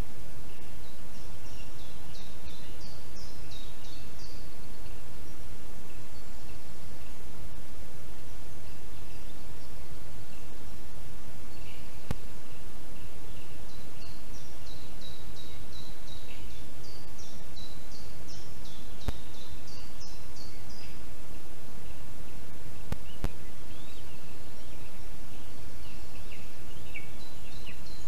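Steady forest background noise with a small songbird singing quick high-pitched phrases in two bouts, a few seconds in and again in the middle, and more briefly near the end. A few faint clicks.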